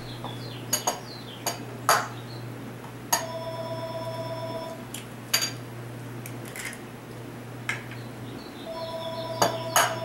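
Eggs being tapped and cracked against a bowl: a series of sharp knocks and clinks, scattered irregularly. Twice a clear ringing tone is held for over a second.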